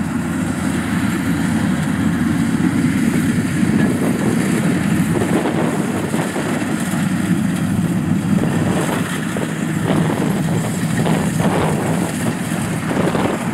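Kubota combine harvester, badged DC-115 Plus, running steadily under load as it cuts and threshes lodged, flattened rice.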